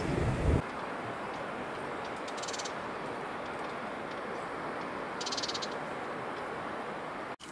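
Open riverside ambience: a steady, even hiss of wind and water. A low rumble fills the first half-second, then cuts off. Twice, a short burst of rapid high chirping.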